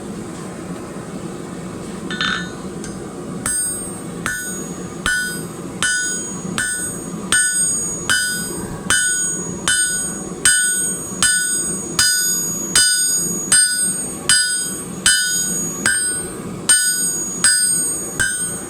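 Hand hammer striking hot steel on an anvil, flattening the end of a forged hook where it will be drilled. One blow comes about two seconds in, then about twenty steady, evenly paced strikes, a little more than one a second, each with a bright metallic ring.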